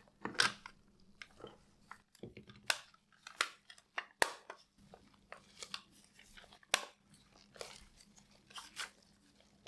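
Irregular sharp clicks and taps of the toy phone's plastic housing being handled and fitted back together.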